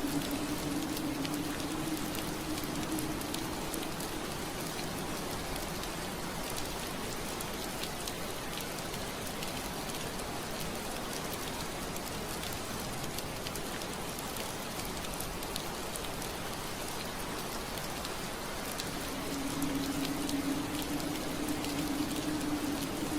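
Steady rain pattering on window glass, an even hiss dotted with fine drop ticks. A low steady drone under it fades out a few seconds in and comes back near the end.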